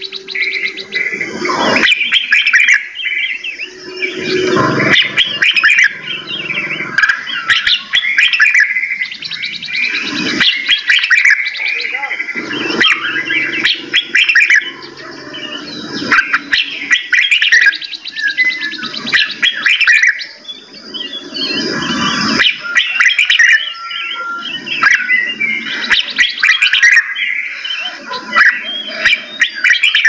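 Several caged songbirds chirping and singing together, many short calls and trills overlapping without pause, with a few short clicks among them.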